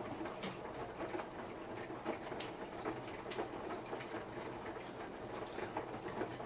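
Samsung Eco Bubble washing machine running a wash cycle: the drum turns with a low hum while the laundry tumbles, giving irregular light clicks and knocks. The sound gets louder just at the start.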